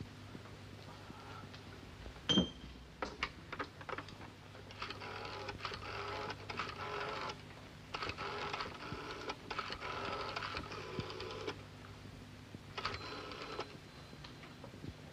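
Rotary telephone being dialled: a loud clack about two seconds in, then the dial whirring and clicking back after each number in three runs of one to two and a half seconds. A steady low hum lies under it.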